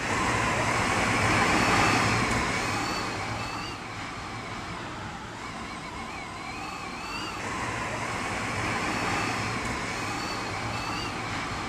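Tornado-force wind roaring in a dense rush, loudest about two seconds in, then easing and swelling again. A faint wavering high whistle rises over it a few times.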